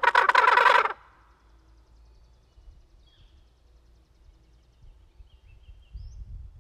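A single loud turkey gobble, a rapid rattling call lasting about a second. After it, faint bird chirps, then rustling footsteps near the end.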